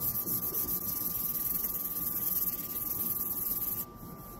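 Dry sandpaper rubbing over a plastic headlight lens by hand, a steady scratchy rasp of fine-grit (800) paper smoothing the yellowed, oxidised surface. It stops just before the end as the sanding disc is lifted off the lens.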